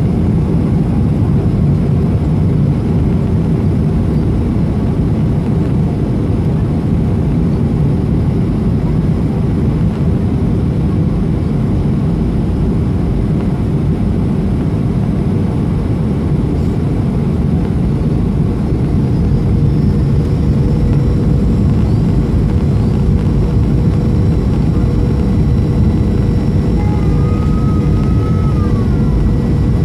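Steady cabin noise inside a Boeing 737-300 on descent: a deep engine and airflow rumble with a faint steady whine above it.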